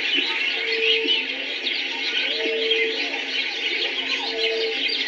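Recorded African bush atmosphere: a dense chorus of many birds chirping and trilling, with a short low hooting call repeating about every two seconds.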